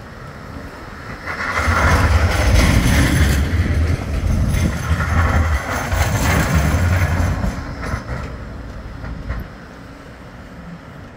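Bombardier Flexity 2 tram passing close by on street track, with a low rumble of wheels on rail. It swells about a second and a half in, stays loud for several seconds as the cars go past, then fades away.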